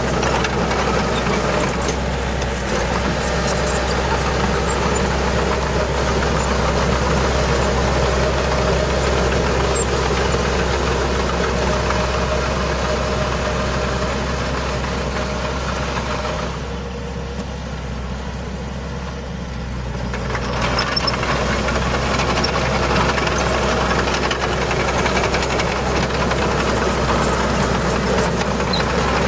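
Heavy diesel earthmoving machinery running steadily. Its engine note drops for a few seconds past the middle, then comes back up.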